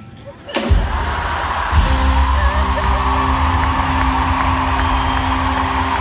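Live orchestra and band come in suddenly after a brief lull, with heavy drums and bass, then hold a loud sustained chord. Steady audience cheering runs beneath the music.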